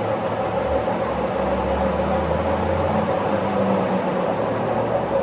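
A machine running steadily with an even mechanical hum.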